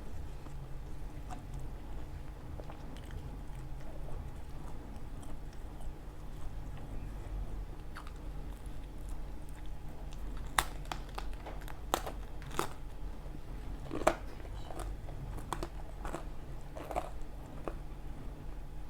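A person biting and chewing pizza close to the microphone. Sharp clicks of bites and mouth sounds come mostly in the second half, over a steady low hum.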